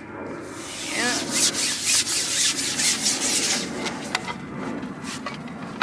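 Long carbon fishing pole being shipped back hand over hand to bring in a hooked fish, the pole sections rubbing and hissing as they slide across the angler's hands and lap. A brief squeak about a second in, and a few sharp clicks near the end.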